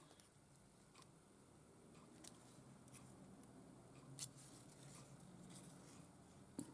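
Near silence: faint room tone with small light ticks about once a second and a sharper click near the end.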